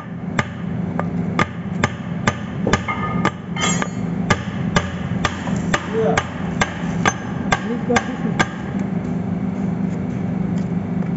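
Steady hammering, about two blows a second, some of them ringing briefly, stopping about eight and a half seconds in, over a constant low machinery hum.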